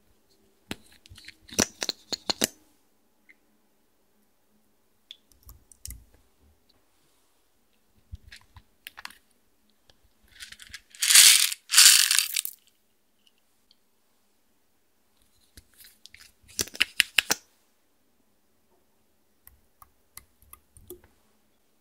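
Faceted beads shaken out of a makeup compact into a plastic tray of clear slime, with the clicking of makeup containers being handled. A few short bursts of clicks and rattles, the loudest a dense rush of beads spilling out about halfway through.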